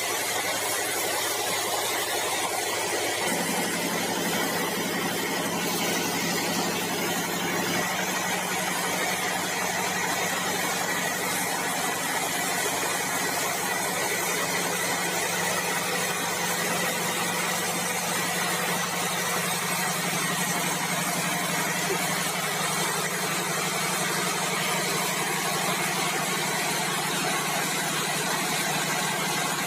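Sawmill machinery running steadily: a constant mechanical hum under an even hiss, the hum shifting slightly about three seconds and again about eight seconds in.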